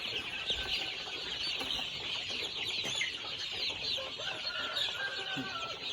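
A pen of month-old chicks peeping continuously, many short high chirps overlapping into a dense chorus.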